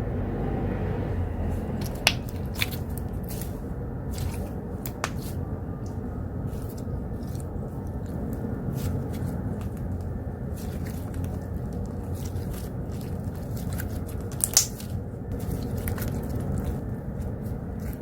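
Slime being squished and worked by hand, with many small sticky pops and clicks. Underneath is a steady low rumble of outside noise coming in through an open window.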